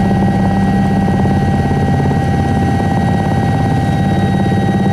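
Airliner engines heard inside the cabin during landing: a loud, steady drone with several steady whining tones above it.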